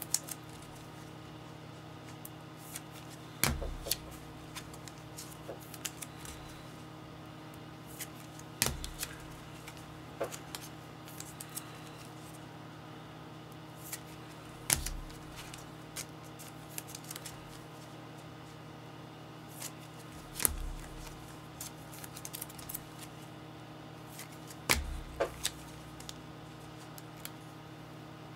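Trading-card packs and boxes being handled on a table: scattered clicks and crinkles, with five dull thumps a few seconds apart, over a steady low hum.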